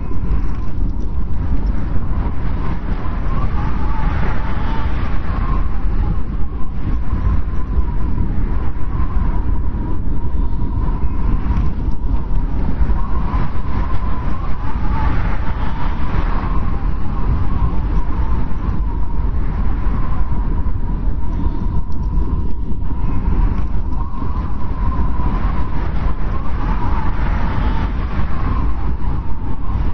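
Blizzard wind: a deep, steady rumble with a high whistle that swells and fades in gusts every few seconds.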